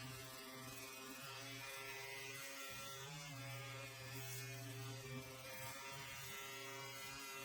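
Small dual-action (DA) sander running with a steady hum, used to clean mill scale off a steel axe head before bluing.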